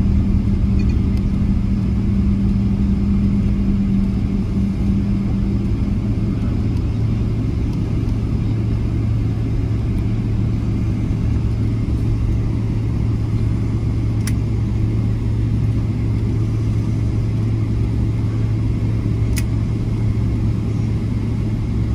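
Airliner cabin noise while taxiing after landing: a steady low rumble with a low hum that fades out about six seconds in, and two brief clicks later on.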